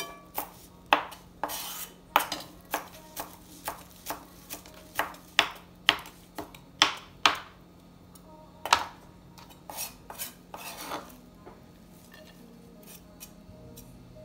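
Knife knocking against a cutting board as a tomato is sliced: sharp, irregular strokes about two a second, thinning out and getting softer near the end.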